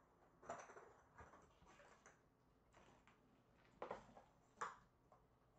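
Faint, scattered light taps and clicks from kittens playing on a tile floor, with two sharper clicks about four seconds in.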